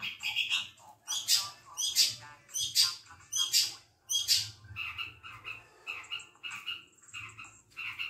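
Caged long-tailed shrike (cendet) singing. First comes a series of loud, harsh notes, about one every 0.7 s. From about five seconds in, quicker, more tuneful notes repeat about twice a second.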